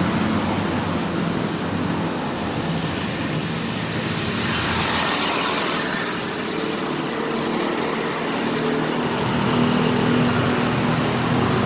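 Busy street traffic: motorcycle and car engines running and passing steadily, with one vehicle passing close about halfway through.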